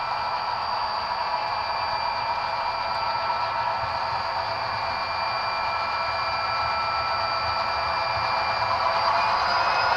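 HO scale model diesel locomotives running toward the microphone, giving a steady mechanical whine over a rushing sound that slowly grows louder as they near; the whine edges up in pitch near the end.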